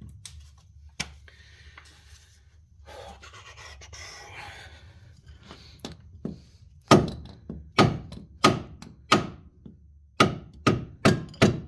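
A soft scraping rustle, then about eight sharp metal knocks, each with a short ring after it, roughly half a second apart in the second half; the first is the loudest. The knocks are typical of hammer blows on steel suspension parts.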